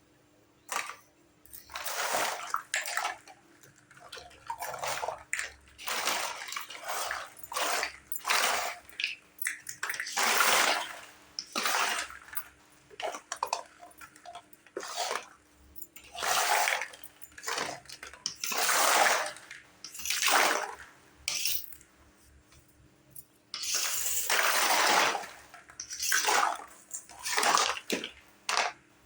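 Water pouring and splashing in short, repeated bursts of about a second each, with brief quiet gaps between.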